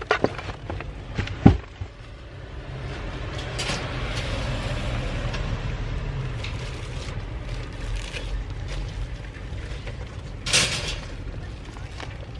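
A car door shutting with a loud thump about a second and a half in, followed by the steady low rumble of a car, and a short rustling burst near the end.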